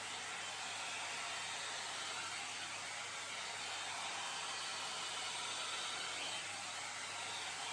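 Hot-air dryer and volumizer brush blowing steadily, an even rushing hiss of fan and air.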